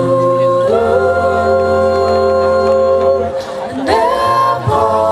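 A group of voices singing long held chords in harmony, moving to a new chord about four seconds in.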